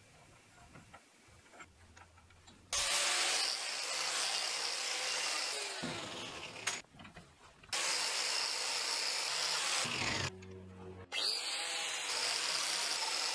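Angle grinder cleaning rust off the head of an old nail clamped in a vise, in three loud passes of a few seconds each, the first starting about three seconds in.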